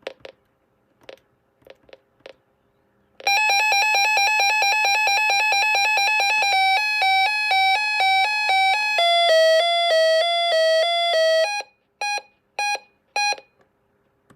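Reecom 1630 weather alert radio's siren test: a few button clicks, then a loud electronic alarm of rapid pulsing beeps that changes pattern and steps down in pitch twice over about eight seconds. It ends with three short single beeps.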